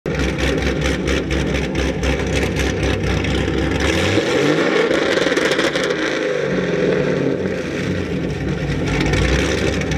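A car engine idling with an even, pulsing beat, then revving up about four seconds in and falling back to a steady run.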